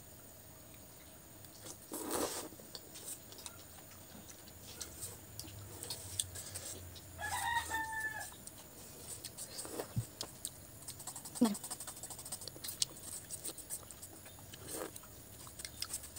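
A rooster crows once, briefly, about seven seconds in, over eating sounds. Short clicks of a fork against a metal plate and slurping of noodles come and go throughout.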